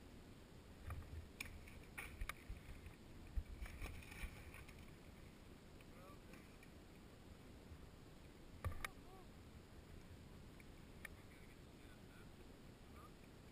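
Faint low wind rumble on the microphone, with scattered sharp clicks and knocks: a cluster in the first few seconds and one louder knock about two-thirds of the way through.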